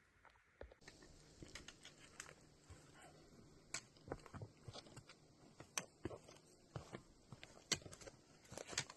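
Hikers' footsteps on a forest trail: irregular steps and small ticks and knocks, starting about a second in.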